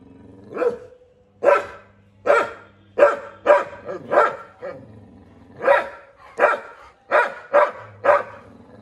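A dog barking over and over, about a dozen short, loud barks at roughly one to two a second.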